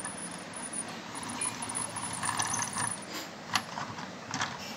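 Handling noise from small toy train models on a wooden surface: a scatter of light clicks and knocks, several close together in the middle and one sharper knock past halfway, over a faint high whine.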